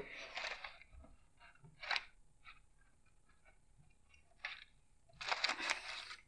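Faint, intermittent metallic clicks and rattles of hand tools and bolts as the alternator mounting bolts are taken out: a cluster at the start, single clicks about 2 s and 4.5 s in, and a longer rattle near the end.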